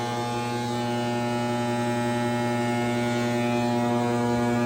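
Magnetic ballasts driving a 12 kW metal halide lamp, humming steadily at mains frequency with many overtones, a loud hum while the lamp warms up at around 45 amps.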